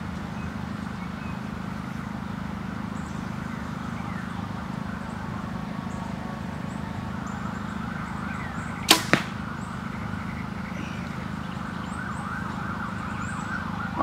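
Compound bow shot: a sharp crack as the string is released, then a second, weaker crack about a quarter of a second later.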